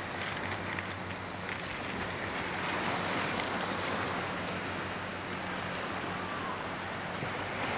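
Small sea waves washing onto a pebble beach, a steady surf noise, with wind on the microphone.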